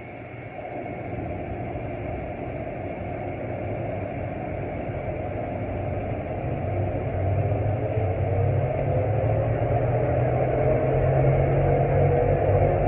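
Rubber-tyred airport people mover train pulling away and picking up speed, heard from inside the car: a steady hum of motors and tyres on the guideway that grows louder, with a faint whine rising slightly in pitch in the second half.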